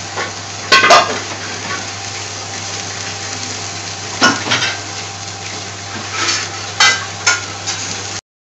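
A pot of vegetables boiling hard under a glass lid: a steady bubbling hiss with a low hum, broken by a few sharp clinks about a second in, around four seconds in and around seven seconds in. The sound cuts out completely just before the end.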